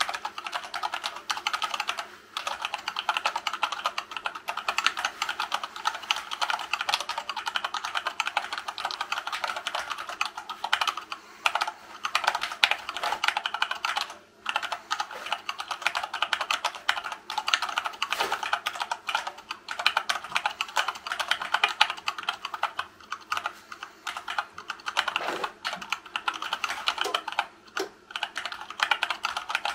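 Fast, continuous typing on a hand-wired split Dactyl Manuform keyboard with silicone-lubed Gateron Brown tactile switches in a 3D-printed wood-filament case: a dense stream of key clacks, broken by a few brief pauses, the longest about 14 seconds in.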